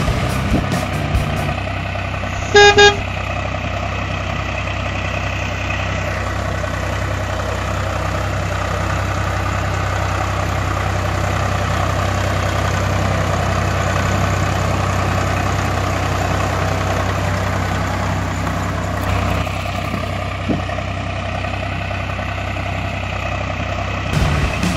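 A vehicle engine running steadily with a low, even pulse, and a brief horn toot about two and a half seconds in.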